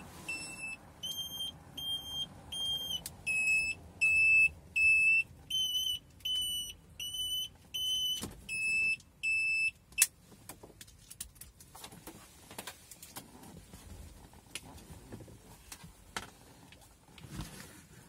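An electronic warning beeper gives a steady run of high beeps, about three every two seconds. It stops suddenly with a sharp click about ten seconds in, followed by light clicks and handling of plastic and cables.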